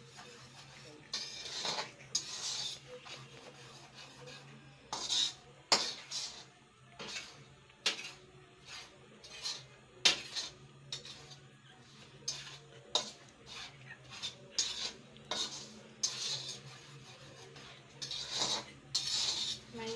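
Metal spoon scraping and clinking against a karahi as dry semolina is stirred and turned while it roasts, in irregular strokes with sharp clinks.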